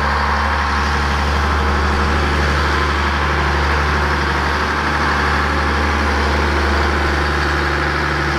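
Case IH 7140 Magnum tractor's diesel engine running steadily as it pulls a forage harvester along.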